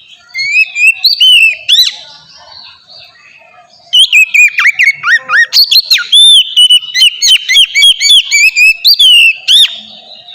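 Oriental magpie-robin (kacer) singing a loud, varied song of clear whistles and fast sweeping notes: a short phrase in the first two seconds, then a long unbroken run from about four seconds in until near the end.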